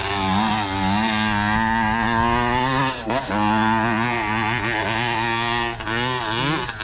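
Dump truck's diesel engine running under load as it tips a load of earth onto a gold-mining sluice, its pitch wavering up and down, with a brief dip about three seconds in.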